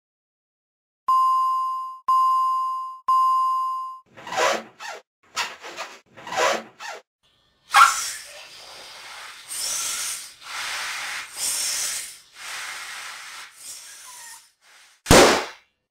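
Three electronic beeps about a second apart, each a steady high tone that fades out, followed by a run of short noisy bursts, a longer hissing stretch, and one loud hit near the end: sound effects under an animated title.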